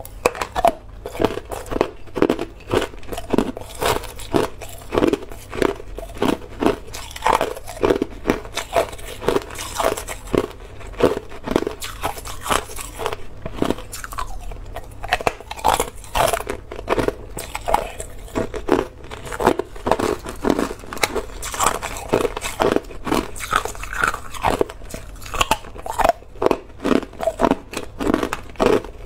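Hard, clear ice being bitten and chewed: an unbroken run of sharp, irregular crunches and cracks, a few each second.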